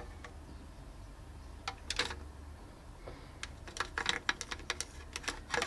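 Irregular light clicks and taps of small hard objects being handled: a few about two seconds in, then a quick scatter of them in the second half.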